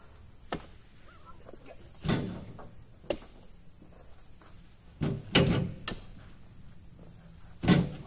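Heavy oil palm fruit bunches thrown down with dull thuds, four in all, two of them close together, with a couple of sharp clicks between.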